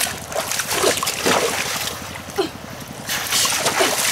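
Splashing and squelching in shallow muddy water and soft mud as boots and hands move through it, with a steady low engine-like running underneath.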